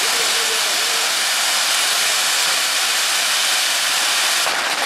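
Firework fountains (gerbs) on a structure spraying sparks with a loud, steady hiss. About four and a half seconds in, the hiss begins to die down.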